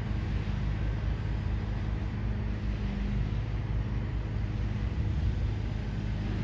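Jet airliner flying overhead: a steady, even engine rumble with a faint hiss above it.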